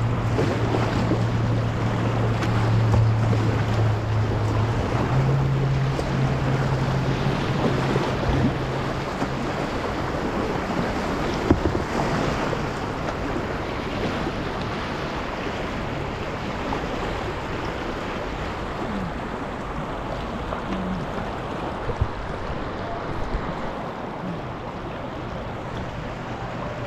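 Steady rushing of river rapids. A low steady hum runs through the first ten seconds, stepping up in pitch about five seconds in, and two single sharp knocks come about a third and four-fifths of the way through.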